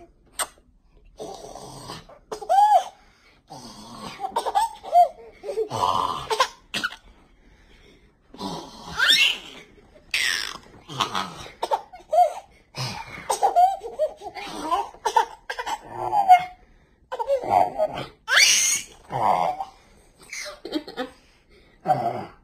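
A one-year-old baby laughing in repeated short bursts, with a few high-pitched squeals, mixed with an adult's playful laughing and voice sounds.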